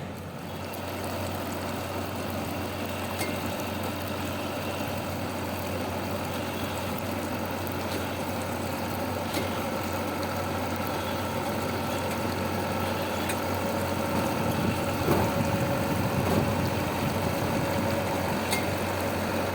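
Engine of a small rice combine harvester running steadily, growing gradually louder, with a louder stretch about fifteen seconds in.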